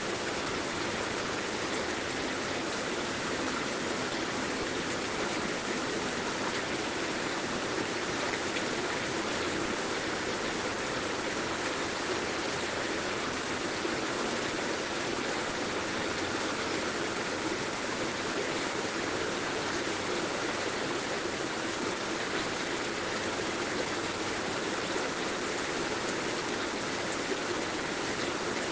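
Heavy rain falling steadily: an even, unbroken hiss of water with no single drops, thunder or pauses standing out.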